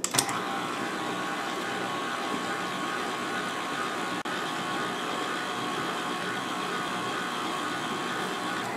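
Stand mixer's motor running steadily, its dough hook turning through flour and water to knead dough.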